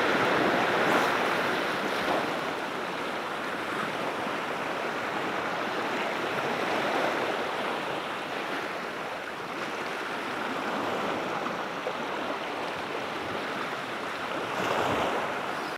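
Small sea waves washing against shore rocks: a steady rushing that swells and eases.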